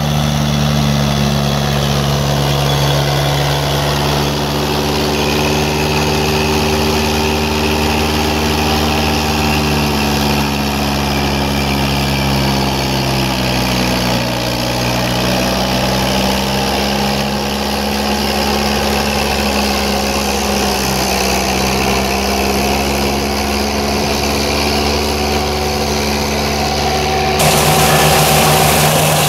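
Engine of a Berti E-Trail remote-controlled tracked flail mulcher running steadily at working speed, its pitch dipping briefly and recovering about halfway through. About 27 seconds in the sound cuts to a louder, brighter take of the machine.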